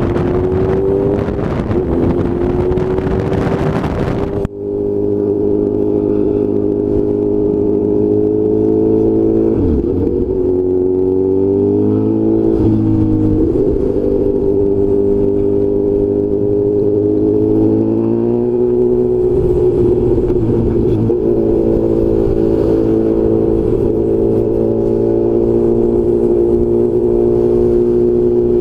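Honda CB1000 inline-four engine running under way, a steady engine note that rises and falls in pitch a few times as the throttle changes. Wind buffeting on the helmet microphone until about four seconds in, where it cuts off abruptly.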